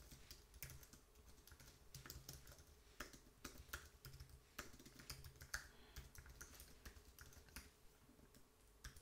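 Faint typing on a computer keyboard: keystrokes at irregular intervals, in short runs.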